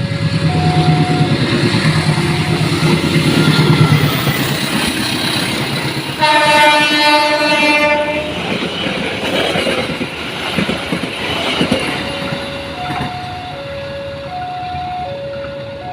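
Train passing with wheel clatter and rumble while a level-crossing alarm repeats its alternating two-tone warning. About six seconds in, the locomotive horn sounds for roughly two seconds. The alarm fades under the train noise and is plain again near the end.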